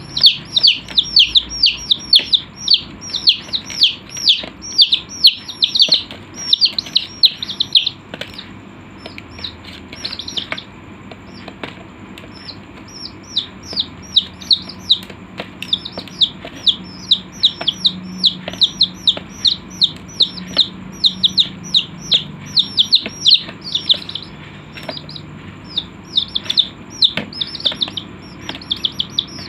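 A group of chicks peeping: many short, high, downward-sliding peeps, several a second, thinning out for a few seconds around the middle before picking up again.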